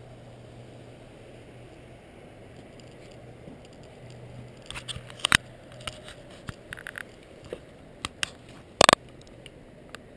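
Steady rush of river rapids. From about halfway, scattered sharp clicks and knocks break in, the loudest a quick rattle of several clicks near the end.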